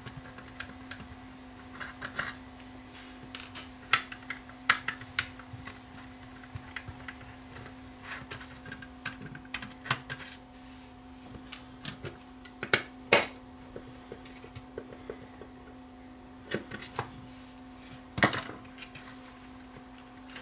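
Screws being taken out of a multimeter's circuit board with a small hand screwdriver: scattered light clicks and taps of the tool, the small screws and the plastic case, irregularly spaced and a few sharper than the rest.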